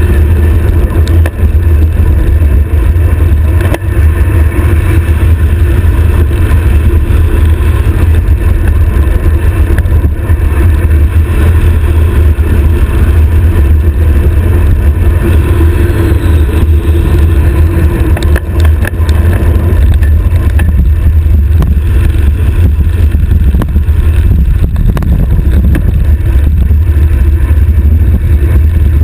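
Wind buffeting the microphone of a stem-mounted GoPro on a road bike descending at high speed: a loud, steady low rumble.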